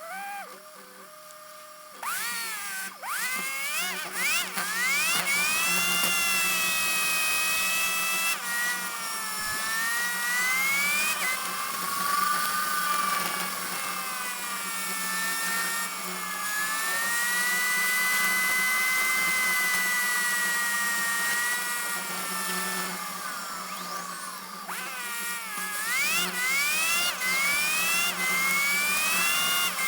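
Heavy diesel vehicle's engine and drivetrain whine, climbing in pitch and dropping sharply a few times as gears change, with slower rises and falls in between.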